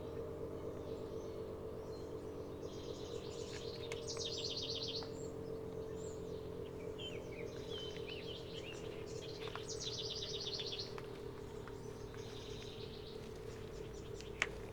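ACA Allertor 125 rotating outdoor warning siren sounding the steady tone of a full alert, holding nearly level in pitch and growing a little fainter in the second half, while songbirds chirp and trill over it. A sharp click near the end.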